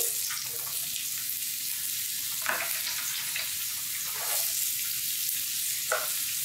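Diced zucchini, carrot and bell peppers dropping into a very hot oiled skillet and sizzling. The sizzle starts suddenly and runs steady, with three short knocks as more vegetables go into the pan.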